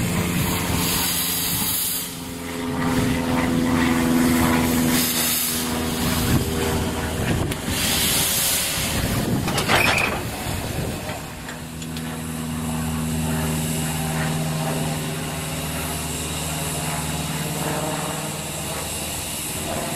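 Narrow-gauge steam locomotive standing in steam: repeated bursts of steam hissing over a steady low tone, with one sharp knock a little before halfway.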